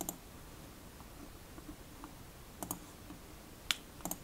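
Computer mouse button clicks: a double click at the start, another double click a little over halfway through, then a single click and a last double click near the end.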